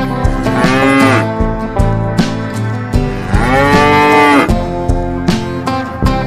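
Cow mooing twice: a short moo just after the start and a longer one about three seconds in, each rising and then falling in pitch, over background guitar music.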